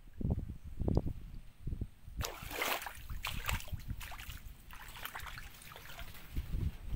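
Footsteps on the wooden boards of a pond-side shed: three dull thuds, then from about two seconds in a dense, crackly rustling with many small clicks.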